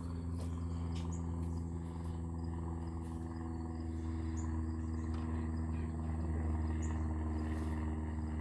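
Steady low hum made of several unchanging tones, with faint short insect chirps over it every few seconds.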